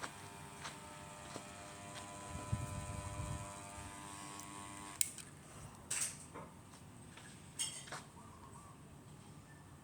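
Small electric motor of a remade mini ceiling fan running with a steady whine. It cuts off suddenly about halfway through, and a few sharp clicks follow.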